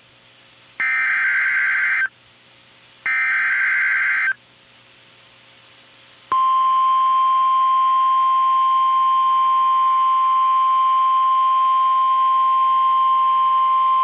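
NOAA Weather Radio emergency alert: two short bursts of buzzy digital SAME header data, then, about six seconds in, the long steady single-pitch warning alarm tone. This tone signals that a warning message is about to be broadcast.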